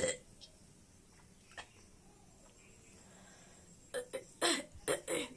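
A woman coughing: one sharp cough at the start, then a quick run of about five coughs near the end.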